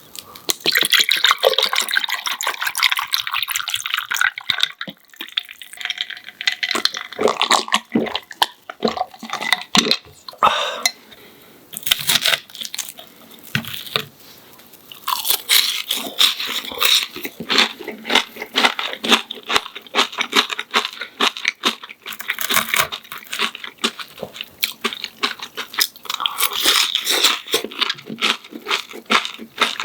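Close-miked crunching of a crispy breaded pork cutlet (donkatsu): many sharp crackles in quick, irregular succession.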